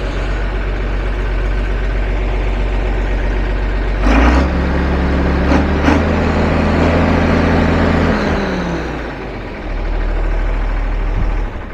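Tractor engine running close by. Its speed comes up about four seconds in and holds, falls away around eight seconds, rises again and drops off near the end.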